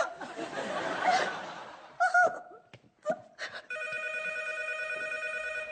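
A telephone rings with a steady electronic trill, starting about three and a half seconds in and lasting about two seconds. Before it, laughter fades and a woman gives a crying wail.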